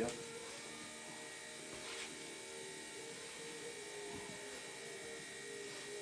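Steady, faint electrical hum with a thin high whine above it.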